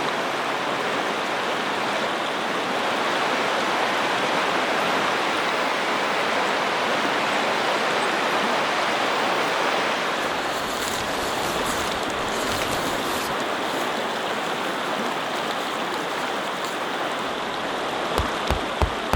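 A river running high and swollen, rushing in a loud, steady wash of water noise. Near the end, a run of regular low thumps begins.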